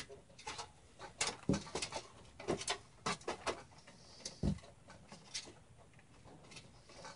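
Hands handling a computer case and its bundled cables: irregular light clicks, taps and rustles, with two duller knocks about one and a half and four and a half seconds in.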